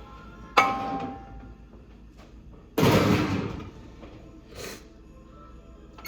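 A metal baking sheet clangs with a short ringing tone about half a second in, then a louder, rougher knock lasting about a second near the middle, as the cookies come out of the oven. Faint music runs underneath.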